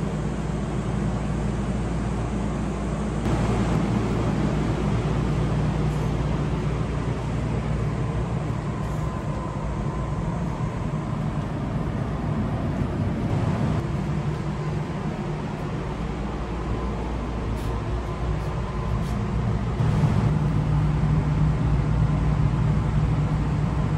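Steady electrical hum of a stationary Chiba Urban Monorail suspended monorail car, doors open at the platform, with its onboard equipment running. The hum swells slightly near the end.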